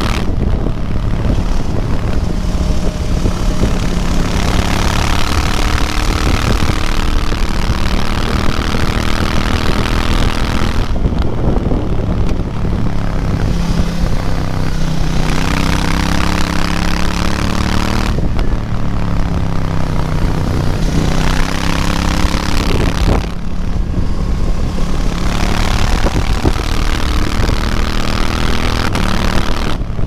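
KTM 790 Duke's parallel-twin engine, restricted to 47.5 hp for the A2 licence, at riding speed through a run of bends. The revs rise and fall over and over under a rushing wind hiss, which thins out three times as the engine note drops.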